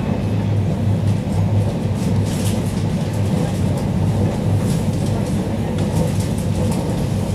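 ED9MK electric multiple unit in motion, heard from inside the passenger car: a steady low rumble and hum, with a few faint clicks and rattles.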